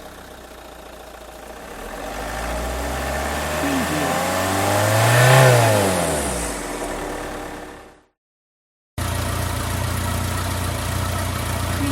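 Car engine running at idle, then revved once: its pitch climbs to a peak about five seconds in and falls back before the sound fades out. After a second of silence, a car engine idles steadily.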